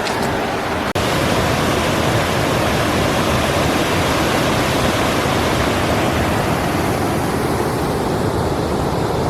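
Loud, steady rush of a waterfall and rapids running high, getting a little louder about a second in.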